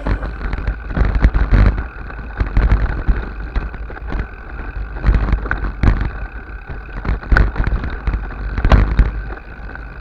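Wind rumbling on the microphone of a camera on a mountain bike riding rough ground, with irregular knocks and rattles from the bike.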